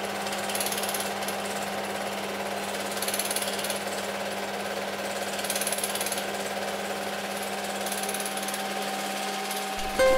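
Super 8 film projector running: a steady, fast mechanical rattle over a low hum, swelling a little every couple of seconds. Ukulele strumming comes in right at the end.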